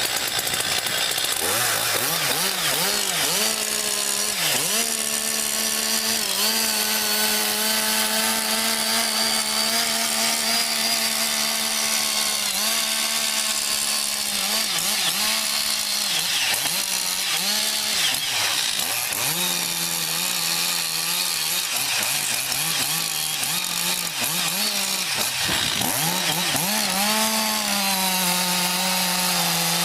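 Chainsaw running at full throttle while cutting wood, holding a steady high pitch for long stretches. Several times the pitch briefly sags and recovers as the chain bites into the wood.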